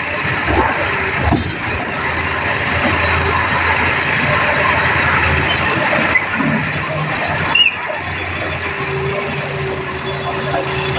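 Tata Hitachi excavator's diesel engine running steadily, with a brief high squeal about two-thirds of the way through.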